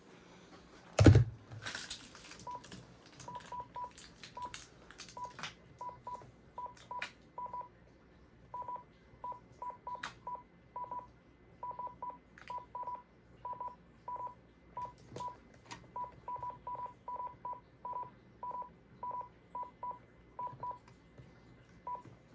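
Desk phone keypad being pressed over and over, each press giving a short beep at one pitch, about forty beeps at an uneven pace. One loud knock about a second in.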